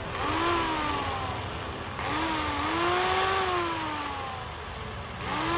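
Makita MUC351 electric chainsaw motor triggered in three short bursts, each time quickly spinning up and then slowly winding down in pitch. It is run to check that the oil pump delivers oil.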